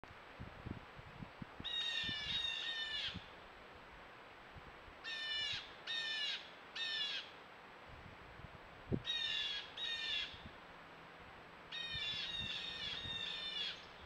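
A bird calling loudly in four runs of repeated calls, two to four calls in each run, every call about half a second long.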